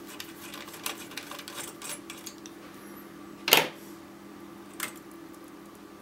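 Small clicks and ticks of a mini screwdriver turning out the Torx screws of a CPU heatsink, with one sharper click about three and a half seconds in, over a steady low hum.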